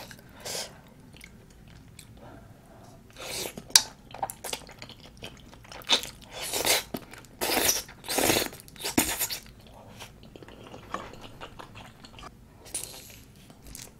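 Close-miked eating sounds: chewing and slurping of spicy tteokbokki with glass noodles, in irregular wet bursts that come thickest and loudest in the middle stretch.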